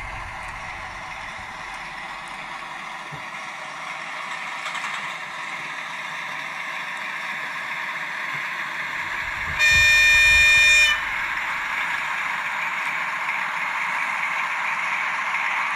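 Sound decoder of an N-scale V162 (class 217) model diesel locomotive playing a steady diesel engine sound through its small speaker, growing slowly louder as the train comes closer. About ten seconds in it sounds one horn blast lasting just over a second, the loudest thing here.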